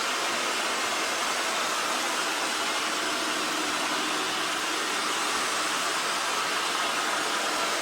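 EXTRAVIS V5 PRO robot vacuum running its suction fan while cleaning the floor: a steady whir.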